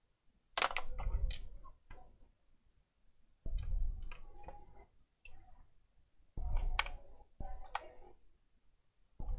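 Clicks and knocks of plastic laptop parts being handled during disassembly, coming in about six short bursts with sharp clicks among them.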